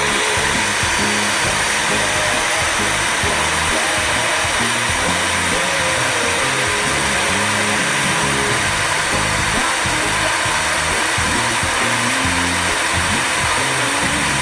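An HDPE butt fusion welding machine's electric motor running steadily with a continuous even whir and hiss, without a break, over background music.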